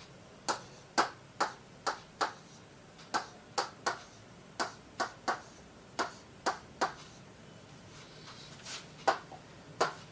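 Pen tip tapping and clicking against the glass of an interactive touchscreen board while writing letters and drawing lines: a string of sharp, irregular taps, with a pause of about two seconds past the middle.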